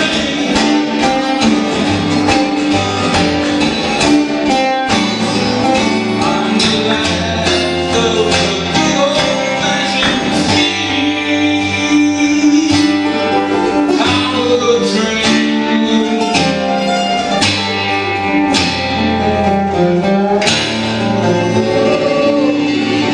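Two acoustic guitars played together live, strummed and picked in a steady song accompaniment.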